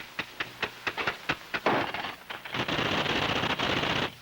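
Typewriter keys struck one at a time, about four a second, then a continuous rapid clatter of typing from about two and a half seconds in.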